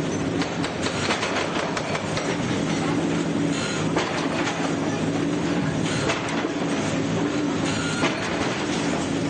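Bulldozer's diesel engine running steadily under load, with irregular knocks and clatter mixed in.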